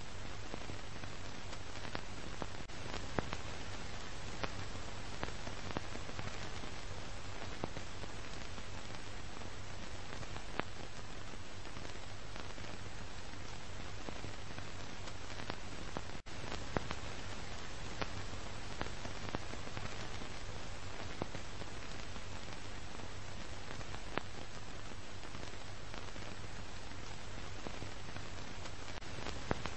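Steady hiss of old film soundtrack noise, with a low hum and scattered crackles and pops. It cuts out for an instant about halfway through.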